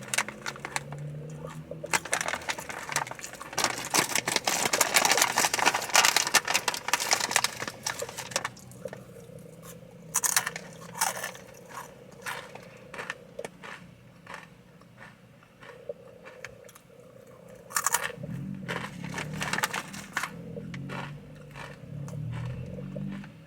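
Takis rolled corn tortilla chips being crunched and chewed: a long run of dense crackling crunches, then scattered single crunches and chewing.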